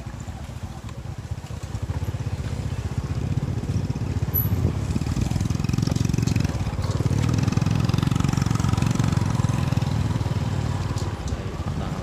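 Small motorcycle engine running at road speed, a steady low pulsing drone that grows louder about four seconds in.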